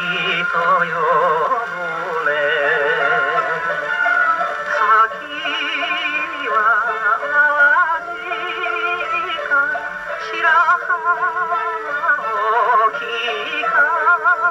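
Acoustic Columbia Model No. 105 phonograph playing a 1951 Japanese 78 rpm shellac record: a male singer with a wide vibrato over a small band. The sound is thin, with little bass and little treble.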